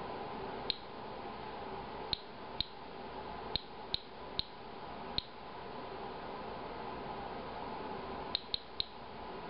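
Inspector Alert Geiger counter clicking once for each detected count: about ten short, high chirps at random, irregular intervals, with three in quick succession near the end. It is counting at a slow rate of ionization, close to background level.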